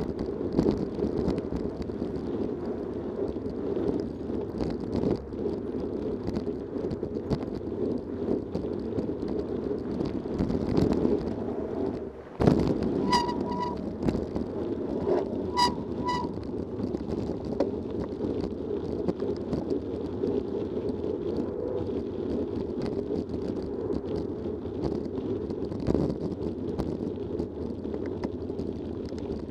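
Mountain bike riding fast on a gravel forest path, heard from a camera on the bike: a steady rumble of tyres on gravel with wind noise on the microphone and many small knocks and rattles. Just under halfway through the sound drops out for a moment and then comes a sharp knock. Twice shortly after, there is a brief pair of high chirps.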